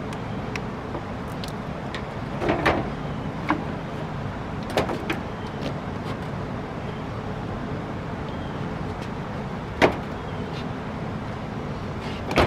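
Plastic headlight housing being handled and set into place on the car's front end: scattered clicks and knocks of plastic on plastic, a cluster a few seconds in and the sharpest one near the end, over steady background noise.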